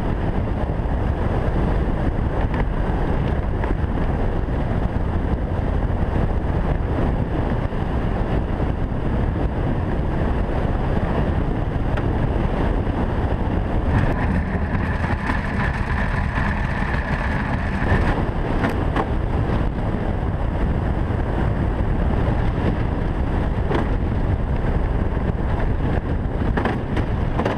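Two-man bobsleigh running at speed down an ice track: a steady, loud rush of steel runners on ice, with wind buffeting the sled-mounted microphone. A higher scraping tone rises above it for a few seconds about halfway through.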